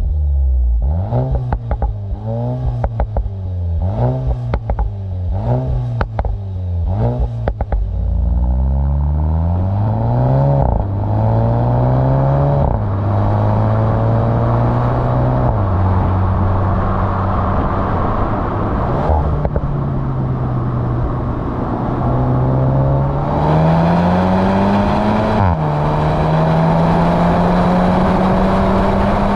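The 2023 Volkswagen Golf GTI's 2.0-litre turbo four-cylinder engine is revved in about seven quick throttle blips. It then accelerates, its pitch climbing and dropping sharply at each upshift of the seven-speed dual-clutch gearbox, and settles to a steady pitch near the end.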